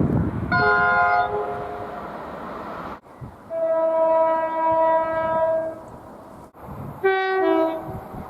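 Train horns sounding in three separate snatches, cut abruptly one to the next: a short blast about half a second in, a long steady note of about two seconds from around 3.5 seconds, and a brief two-tone sounding that steps from high to low near the end. A low rumble runs beneath the first blast.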